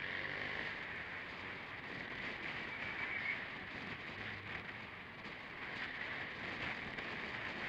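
Vespa GTS 300 scooter under way, its single-cylinder engine running beneath a steady rush of wind and road noise on the action camera's microphone, growing louder right at the start.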